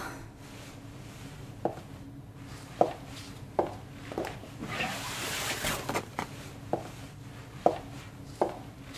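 Slow footsteps, about one step a second, with a longer rustling scrape in the middle, over a low steady hum.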